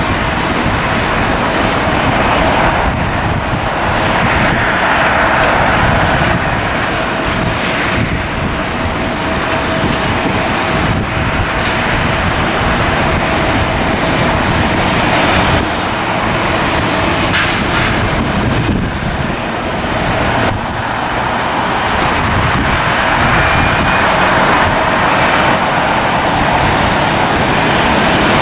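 Airliner engines running with a steady whine, loud and continuous, under rough wind buffeting on the microphone.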